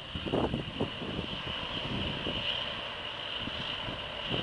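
Scania V8 truck engine running as the truck pulls away across a lot, heard at a distance under a steady high whine. Gusts of wind buffet the microphone in the first second.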